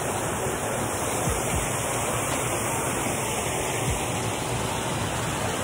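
Steady rush of water pouring out of a small concrete channel outlet.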